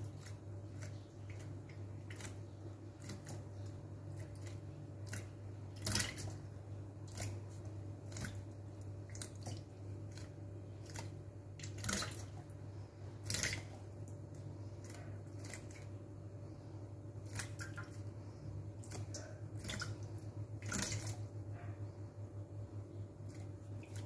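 A myna bathing in a steel basin of water, dipping and fluttering so that short splashes come in quick bursts all through, a few of them louder. A steady low hum runs underneath.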